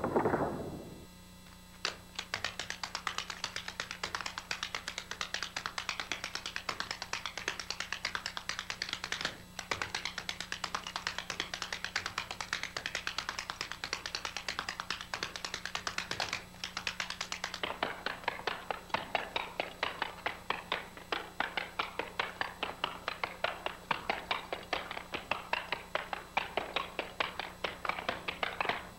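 Tap shoes striking a wooden floor in fast, continuous rhythmic runs of taps, starting about two seconds in, with two brief breaks. A short low rumble comes in the first second, before the tapping begins.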